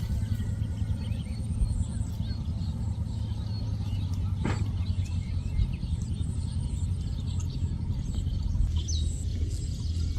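Outdoor ambience: a steady low rumble with faint bird chirps and whistles, and a single sharp click about four and a half seconds in.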